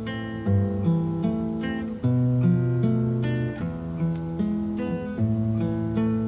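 Music score of acoustic guitar playing slow plucked chords, each note ringing and fading before the next chord.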